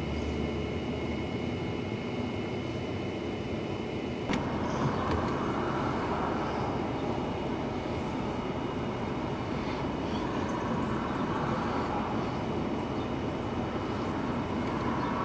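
Steady outdoor rumble and hiss. Two steady high tones stop at a cut about four seconds in, and after that the noise is brighter.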